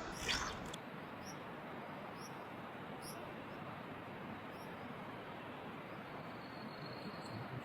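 Steady rush of flowing stream water, with a short falling sweep, the loudest sound, in the first second, and faint high chirps repeating about once a second.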